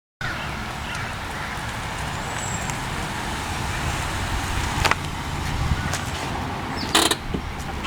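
Steady low rumble of a motor vehicle, with a sharp click about five seconds in and a brief knock near the end.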